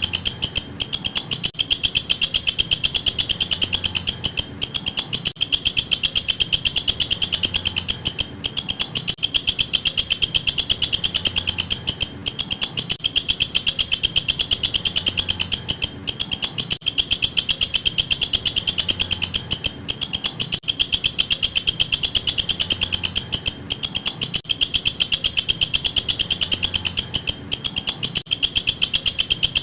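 Walang kecek insect stridulating: a loud, high, rapidly pulsed trill that goes on and on, broken by a brief pause about every four seconds.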